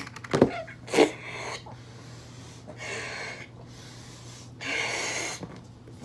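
Someone blowing up a latex balloon by mouth: two short, sharp sounds in the first second, then two long breathy blows, the second louder.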